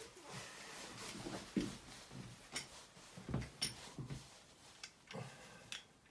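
Faint, scattered light clicks and knocks of shower fittings being handled, a few spread about a second apart.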